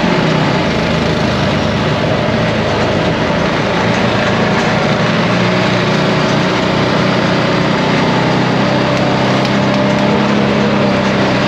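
ATV engine running steadily while riding along a trail, its low hum held at an even pitch under a constant rushing noise.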